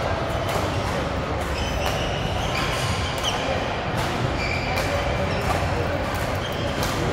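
Steady noise of a busy badminton hall, with scattered sharp hits of rackets on shuttlecocks and short high squeaks of shoes on the court floor.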